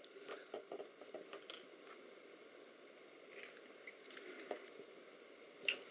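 Faint, scattered crunches and clicks of crumbly yellow potting compound being picked and pried away from a circuit board by hand, with a sharper click near the end.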